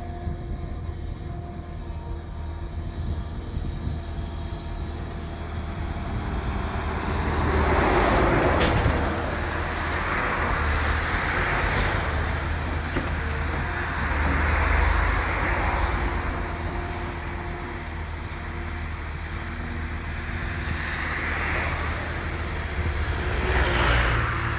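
Diesel engine of a Cat M318D wheeled excavator running with a steady low hum, with a rushing hiss that swells and fades several times.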